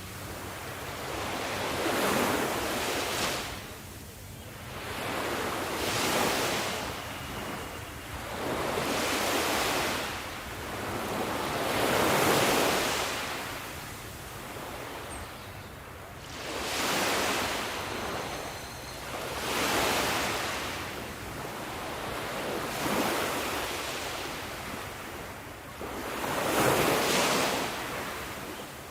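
Sea waves breaking and washing back, each wave swelling and fading in turn, about every three to four seconds.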